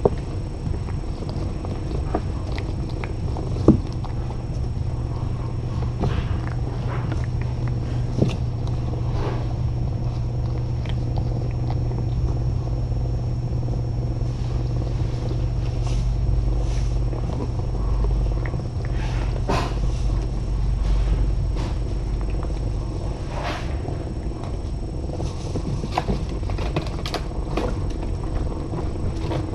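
Mother cat purring while her kittens nurse, a steady low rumble that strengthens a few seconds in and eases off past the middle, with scattered light clicks over it.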